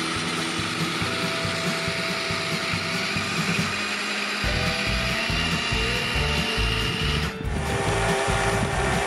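Small LEGO Technic electric motors whining as the model icebreaker's twin ice drills spin, the whine stepping in pitch a few times as the load changes. About halfway through a rapid, rough low churning joins in as the drills work against the ice.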